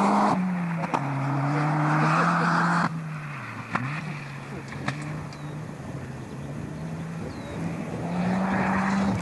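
Peugeot 205 GTI 1.9 rally car's four-cylinder engine revving hard on a gravel stage, its pitch climbing. About three seconds in the sound drops sharply quieter, and the engine runs steadier before rising again near the end.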